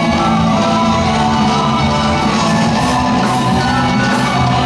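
Loud dance music from a DJ's sound system, with a drummer playing along live on a drum kit.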